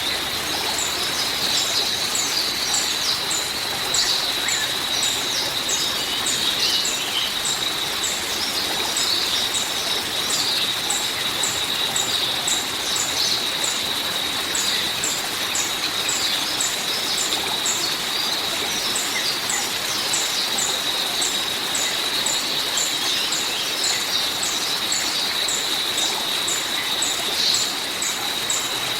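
Nature ambience: a steady rain-like hiss with many birds chirping in rapid, repeated short notes, over a steady high-pitched tone.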